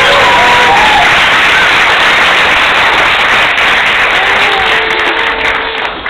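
Audience applauding, with a few voices calling out over the clapping, dying down near the end.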